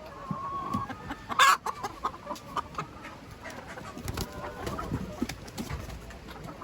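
Laying hens clucking and squawking, with one loud squawk about a second and a half in, over scattered light knocks.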